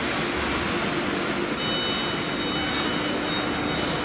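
CNC router spindle running while the machine engraves a wooden board, a steady rushing machine noise. A steady high whine joins about one and a half seconds in.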